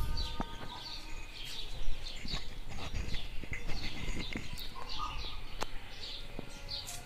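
Small birds chirping: many short, falling high chirps in quick succession, with a brief thump about two seconds in.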